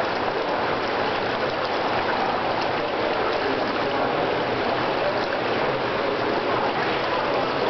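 Indoor swimming pool hall ambience: a steady, even wash of water noise, with no break or sudden sound.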